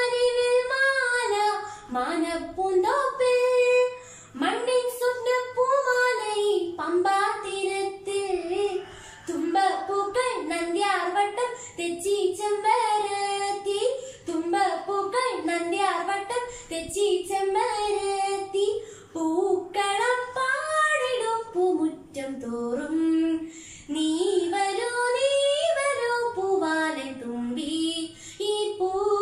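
A teenage girl singing a Malayalam Onam song (Onappattu) solo and unaccompanied, in long ornamented phrases that glide up and down, with short breaks for breath between lines. The voice echoes slightly in a small room.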